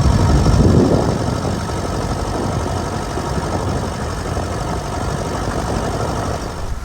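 Tractor engine running steadily, a little louder for a moment about a second in.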